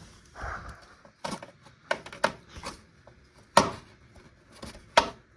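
Irregular sharp clicks and light knocks as a small screwdriver and hard plastic parts of a radio-cassette-CD player are handled while working at a tiny, stiff screw. The two loudest clicks come about three and a half and five seconds in.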